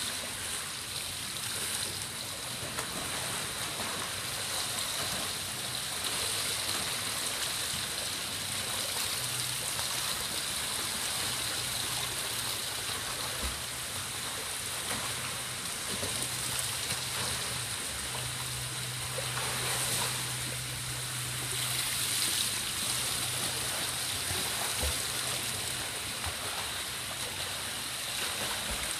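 Splashing and churning water from a swimmer's front crawl arm strokes and flutter kick in an indoor pool, a steady rushing wash that swells and eases, over a low steady hum.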